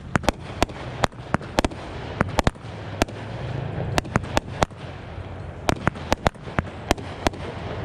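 Aerial fireworks firing: a string of sharp pops from shots launching and bursting, irregularly spaced at two or three a second, over a continuous hiss.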